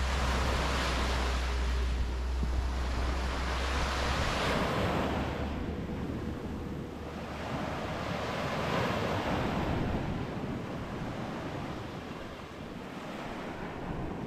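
Ocean surf washing onto a beach, the noise swelling and falling back in slow waves every few seconds. Wind rumbles on the microphone until about four seconds in.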